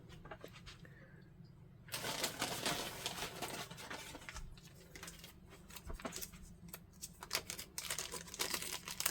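Crinkly packaging being handled. The crinkling starts about two seconds in, is dense for about three seconds, then turns into scattered crinkles and clicks.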